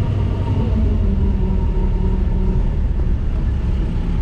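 A jeep running on the move, its engine and the ride making a steady low rumble, with the engine note shifting slightly in pitch.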